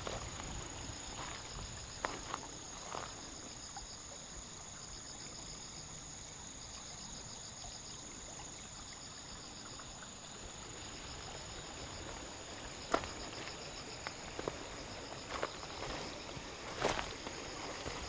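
Insects calling: a steady high-pitched buzz, with a second trill just below it coming in pulsed runs of a second or so. A few scattered footsteps and sharp clicks come mostly in the second half.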